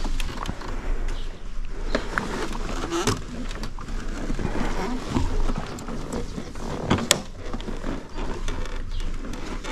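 Rustling, knocks and clicks as a rider and passenger climb onto a motorcycle, over a steady low rumble.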